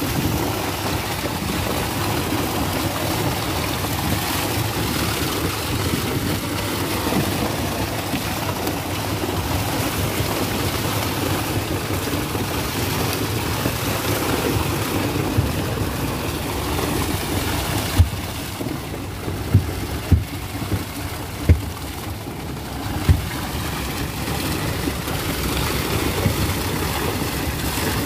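Shoal of fish thrashing and splashing in a purse seine hauled up against a boat's hull, a steady rush of churning water with a low rumble underneath. A handful of sharp knocks come about two-thirds of the way in.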